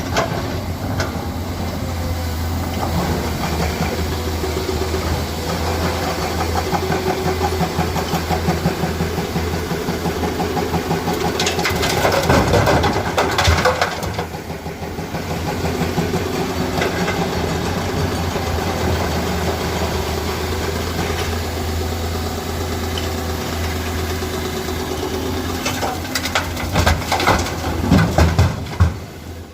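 Komatsu PC200 excavator's diesel engine running steadily under work, loading broken stone. There is a burst of clattering and knocking about halfway through and again near the end.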